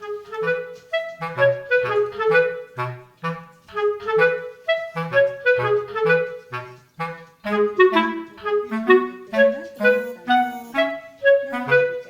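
Background music: a bouncy clarinet melody of short notes over a light bass line.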